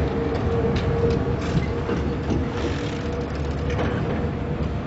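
Trackless amusement road train running past with its carriages in tow: a steady low rumble with a faint whine that fades about a second in.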